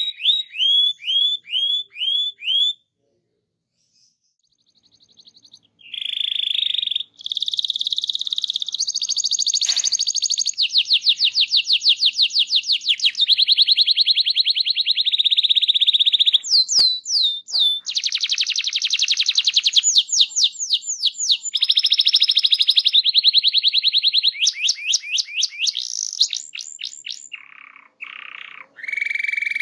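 Domestic canary singing a long rolling song: runs of rapidly repeated notes and fast trills, one phrase after another, broken by a silent pause of about two seconds near the start.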